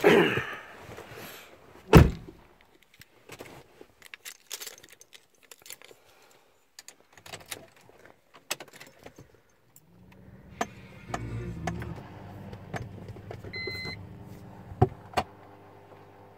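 Keys jangling and handling clicks inside a BMW E46 320d, with a heavy thunk about two seconds in. About ten seconds in, the ignition comes on and a steady low hum starts, with a short beep a few seconds later; the diesel engine is not yet cranking.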